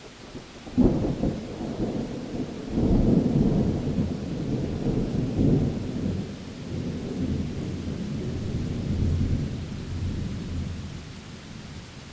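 A thunderclap breaks sharply about a second in and swells again a couple of seconds later. It becomes a long, low rumble that dies away near the end, over a steady hiss of rain.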